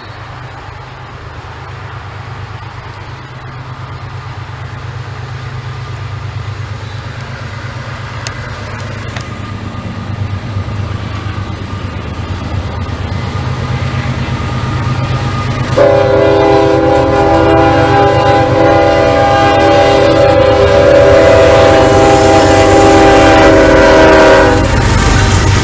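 Locomotive approaching, its low rumble growing steadily louder; about sixteen seconds in its multi-chime air horn sounds a loud chord of several tones, held for about nine seconds before cutting off, as in a horn show for railfans.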